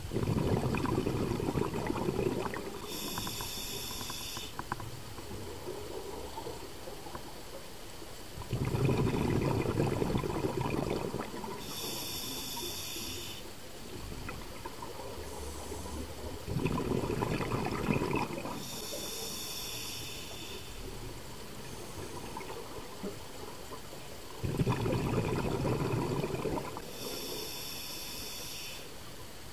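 Scuba diver breathing through a regulator underwater: four breaths about eight seconds apart, each a rush of exhaled bubbles followed by the short hiss of the next inhalation.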